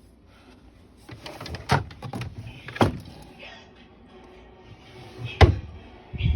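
A series of sharp knocks and clatters, with three louder knocks among lighter clicks and a dull thump near the end.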